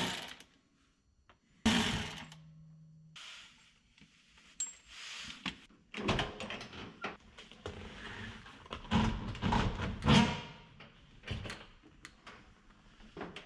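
Clicks and clunks of a 1966 Mustang's driver's door being opened by its handle and the seat being handled, with a thud and a brief low hum about two seconds in.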